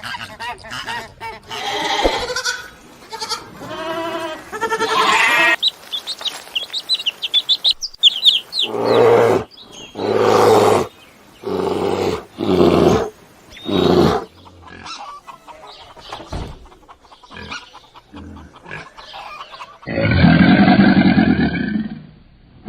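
A run of different animal calls, one after another: wavering calls, then quick high chirps, then a series of five loud calls about a second apart, and near the end a long, loud call of another kind.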